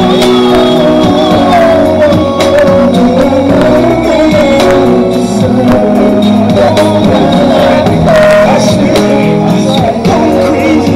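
Loud music with a singing voice over held chords and a steady beat.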